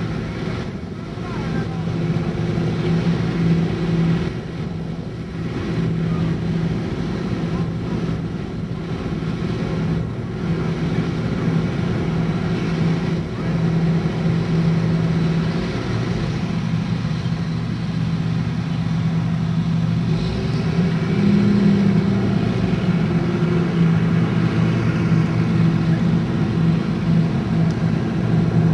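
A John Deere combine harvesting soybeans: its diesel engine and threshing machinery run with a steady drone, growing a little louder in the last few seconds as it draws nearer.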